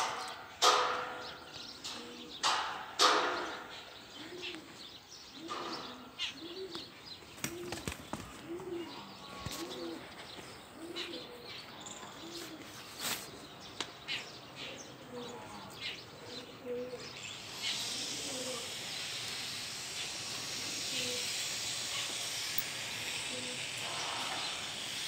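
Soft bird cooing: a run of evenly spaced coos, under a second apart, then scattered calls, with a steady hiss coming in about two-thirds of the way through. A few loud, short sounds come in the first three seconds.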